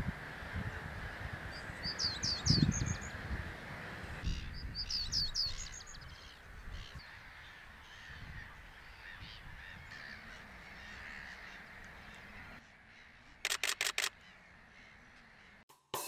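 Male reed bunting singing short phrases of a few high, falling notes, twice in the first five seconds, over low rustling and thumps. Near the end, a rapid burst of four camera shutter clicks.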